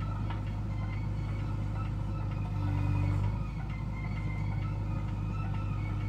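JCB 3DX backhoe loader's diesel engine running steadily under hydraulic load as the digging arm lifts a bucket of mud. About halfway through, the engine briefly grows louder, with a higher tone added.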